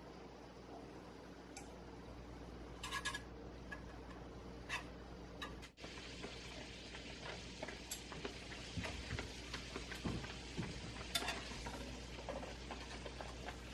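Seaweed broth simmering and sizzling in a non-stick frying pan with beef slices in it, with scattered sharp clicks and taps of chopsticks against the pan; the small crackling ticks get busier in the second half.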